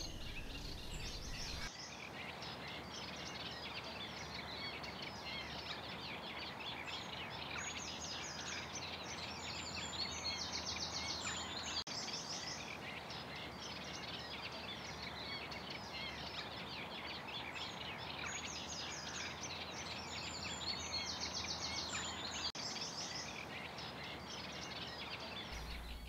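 Eurasian reed warblers singing from a reed bed: a continuous, chattering song made of quick runs of repeated notes, over a steady background hiss.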